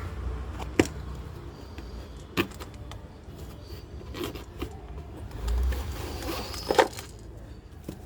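Packaging of a boxed board game being opened by hand: rustling and handling, with three sharp clicks, one about a second in, one a couple of seconds later, and a double click near the end.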